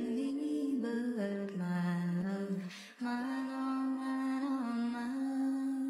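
Outro music: a slow melody led by a humming, voice-like line that glides between held notes, with a short hiss and a brief break about three seconds in.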